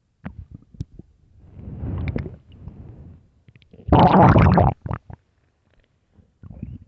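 An empty, hungry human stomach growling and gurgling in irregular bursts. A few short pops come first, then a rumble swells up around two seconds in, and the loudest growl comes at about four seconds, followed by a few brief gurgles.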